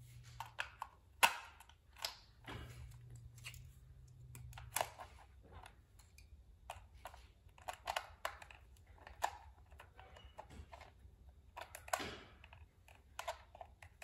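Irregular small clicks and taps as a screwdriver works the battery-cover screw of a plastic remote control and the remote is handled on a wooden floor.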